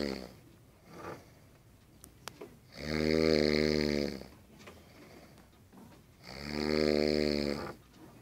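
A person snoring: long, low snores about every three and a half seconds, one tailing off at the start and two more in full, each lasting about a second and a half.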